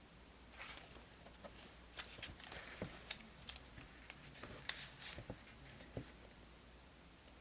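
Paper and stationery being handled on a desk: a soft rustle about half a second in, then a run of light taps, clicks and rustles for about four seconds.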